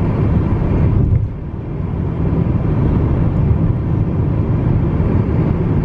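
Steady low road rumble inside a car's cabin while driving at highway speed, dipping briefly about a second in.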